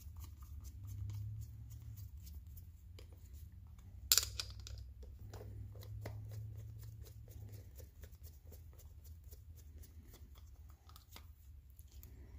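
Screwdriver driving the small screws of a carburetor float bowl back in, with light metal clicks and ticks and one sharper click about four seconds in, over a steady low hum.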